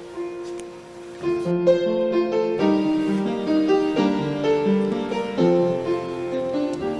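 Instrumental music with keyboard chords and melody, quieter for about the first second, then fuller.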